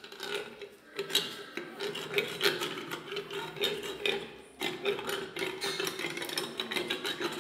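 Equine dental hand rasp (float) scraping back and forth over a horse's cheek teeth in a run of uneven strokes. This is the hand finishing that files down overlong teeth and their sharp edges.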